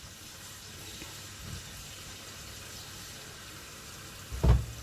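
Beef strips cooking in hot water in a pot, a steady soft sizzle and bubble, with a single dull thump about four and a half seconds in.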